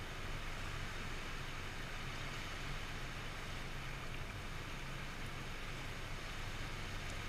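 Small inflatable boat's outboard motor running slowly, a steady low hum under an even hiss of water and wind.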